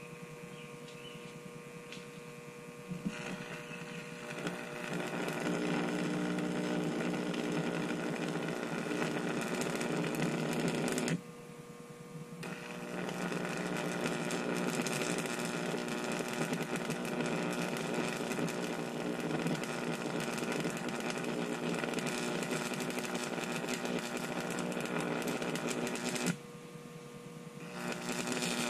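A 15,000-volt electric arc buzzing and crackling as it burns through two lithium-ion batteries. The buzz builds a few seconds in and cuts out abruptly twice, once about 11 seconds in and once near the end, coming back after each short quiet.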